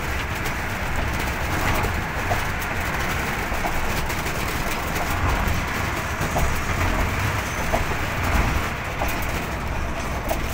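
Steady rush of road and wind noise from a vehicle travelling at speed on an expressway, with a deep rumble and a few faint clicks scattered through it.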